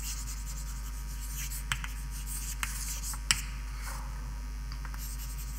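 Writing on a lecture board: faint scratching and a few sharp taps, the loudest about three seconds in, over a steady low hum.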